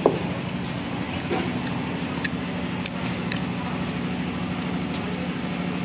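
A steady low mechanical hum, with a short knock right at the start and a few faint ticks.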